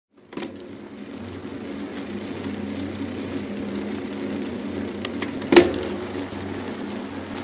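A steady low, engine-like drone with a few sharp clicks, and one loud hit about five and a half seconds in.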